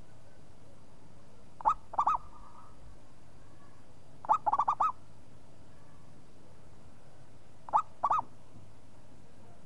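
Zebra dove (perkutut) cooing: three short phrases about three seconds apart. Each is a single note followed by a quick run of two to four rising-and-falling notes, the middle phrase the longest.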